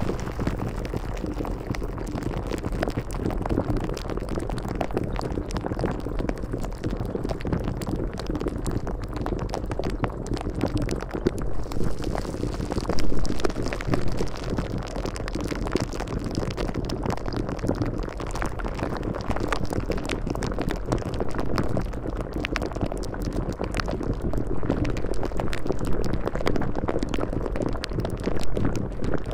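A steady, dense, water-like background noise with no clear tune or pitch.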